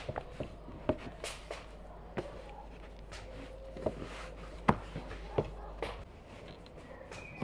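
Scattered light taps and knocks of hands folding and rolling filled pizza dough on a wooden board, with a knife cutting the roll against the board near the end.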